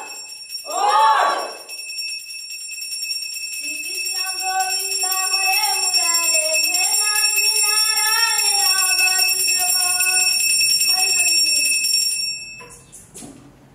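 A short vocal cry, then a voice singing a wordless, wavering tune in long held phrases for several seconds. A steady high-pitched whine runs underneath and cuts off near the end.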